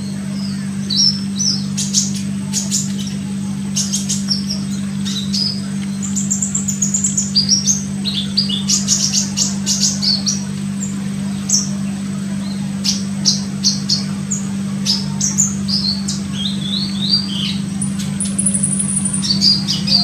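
Olive-backed sunbird (kolibri ninja) giving rapid, high-pitched chirps and short twittering phrases, over a steady low hum.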